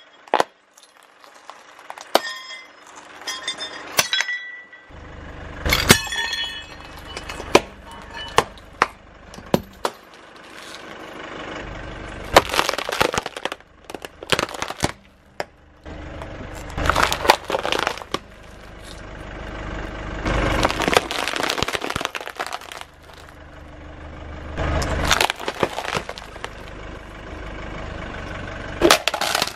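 A car tyre rolling slowly over brittle objects and crushing them. Sharp cracks and snaps of breaking ceramic and plastic come singly at first, then in several dense bouts of crackling, over a low rumble.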